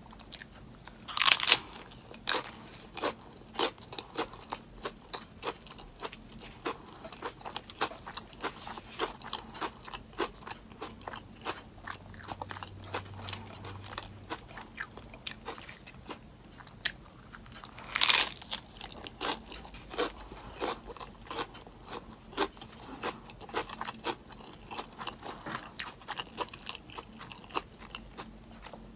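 Close-up eating sounds: chewing and crunching of a lettuce-wrapped meatless burger, with a loud crisp bite near the start and another about two-thirds of the way through.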